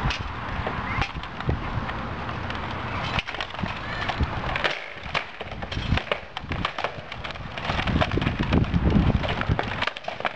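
An irregular run of many sharp clacks and knocks, hard objects striking one another.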